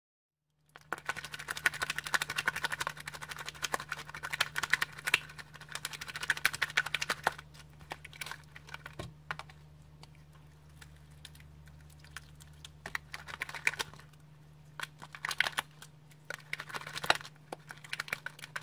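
Jiggly red slime squeezed and pressed by hand in a plastic tub, giving rapid sticky little clicks and pops that thin out in the middle and pick up again near the end. A low steady hum runs underneath.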